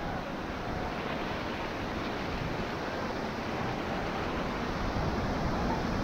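Fast-flowing river water rushing past an inflatable raft, a steady wash of water noise with wind on the microphone.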